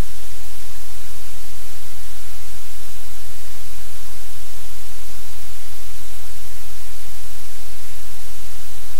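Loud, steady static hiss with a low hum underneath, unchanging throughout.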